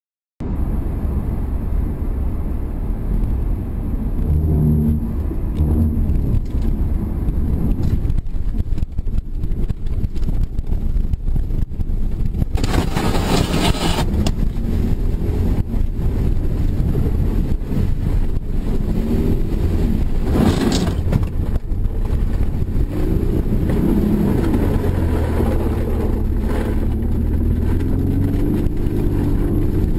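Steady rumble of a car's engine and tyres at speed, heard from inside the cabin. About 13 s in a loud rushing burst comes as the car runs off the road onto rough field, with a shorter burst around 21 s, and near the end the engine note wavers up and down as the car crosses the field.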